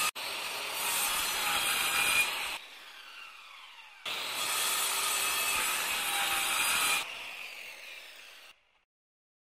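Logo sound effect: two long, harsh rasping noise bursts, the second about four seconds in, each fading away with an echo.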